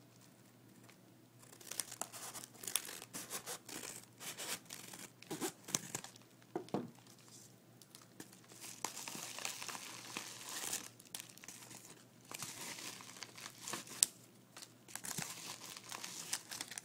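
Package wrapping being opened by hand: irregular crinkling, rustling and tearing, with sharp snaps and short pauses.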